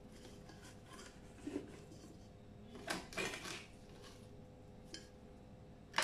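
Fresh mint leaves rustling as they are stuffed by hand into a stainless steel kettle, with light scrapes and a small tap against the kettle; the loudest rustle comes about three seconds in.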